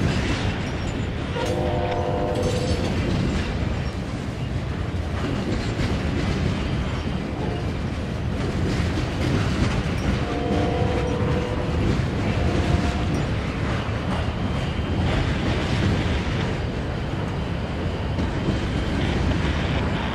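Train horn sounding a chord of several notes: a long blast about a second and a half in, then another long blast and a shorter one around ten to thirteen seconds in. Under it runs the steady rumble of a passing train.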